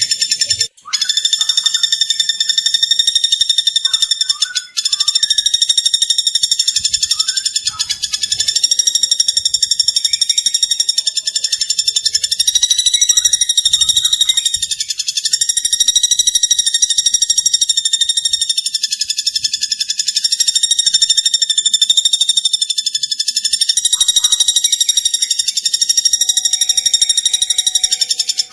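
Recorded song of a platuk bawang: a high-pitched, very rapid trill held almost without a break, with two brief gaps about one second and about five seconds in.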